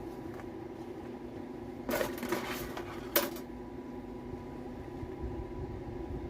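Steady machine hum with a short burst of metal clattering about two seconds in, ending in one sharp clank about three seconds in.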